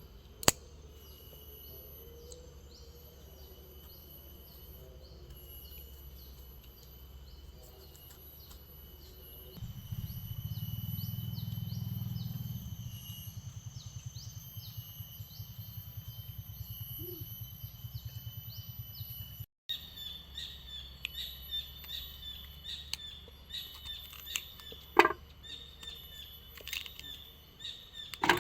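Forest ambience: insects trilling steadily with high repeating chirps, then after a cut, birds chirping. A low rumble runs for about ten seconds midway, and a few sharp clicks stand out.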